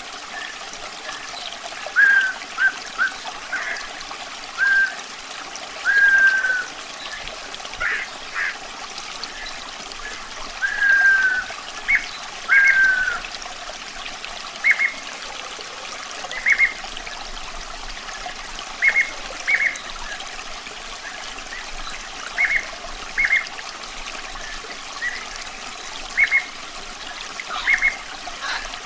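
Steady running water trickling, with a bird calling over it: short whistled notes every second or two, some of them falling slurs, louder than the water.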